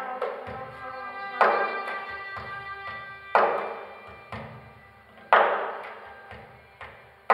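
Live instrumental music from a small ensemble: loud keyboard chords struck about every two seconds and left to ring and fade, with softer notes between.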